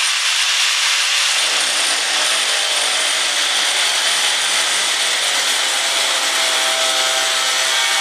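Angle grinder with a cutting disc running steadily and cutting through 2-inch steel strap. About a second and a half in, a lower grinding note joins the high hiss as the disc bites into the metal.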